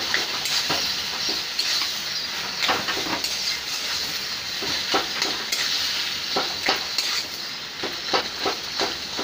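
Onion, garlic and chilli frying in hot oil in a kadai, sizzling steadily, while a spatula stirs and scrapes the pan in irregular strokes.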